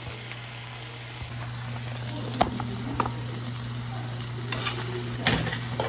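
Chicken frying in a pan: a steady sizzle, with a few sharp clinks, as of a utensil against the pan, from about halfway through and near the end.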